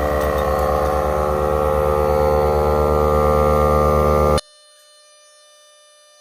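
Milwaukee M18 cordless air compressor running under load as it pumps a car tire toward 36 PSI, with a fast, even pulse, growing slightly louder. It stops abruptly about four seconds in, leaving a faint steady hum.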